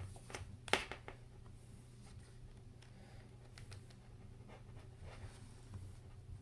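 Small clicks and light scraping of a prying tool working round the edge of an iPad Air 2 to lift its glued screen, with one sharp click a little under a second in.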